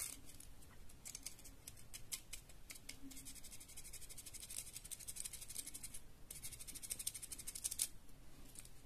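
Small piece of sandpaper rubbed quickly back and forth over the burnt contact of a thermomagnetic circuit breaker: a faint, fast scratching with a short pause about six seconds in. The contact is blackened from arcing, and sanding off the oxide restores the connection whose fault makes the voltage drop and the power cut out.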